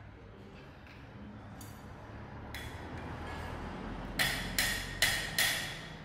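Hammer striking steel wire laid on a concrete floor: four quick metallic blows, about two and a half a second, each with a short ring.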